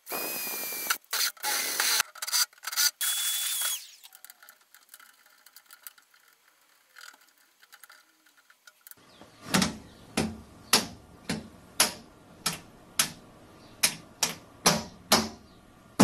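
Cordless drill boring through the sheet-metal lid of an electrical enclosure, run in several short spurts with a whining motor for about four seconds. Later come about a dozen evenly spaced sharp clicks, roughly two a second.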